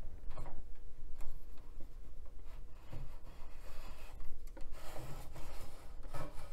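Plastic removable hard-drive caddy being slid out of its drive bay in a computer tower: repeated plastic scraping and rubbing along the bay rails, with small clicks and knocks.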